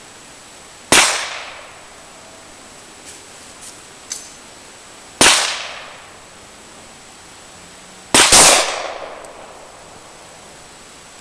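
Glock 22 .40 S&W pistol fired one slow shot at a time, with several seconds between shots, each sharp bang trailing off in a reverberating tail.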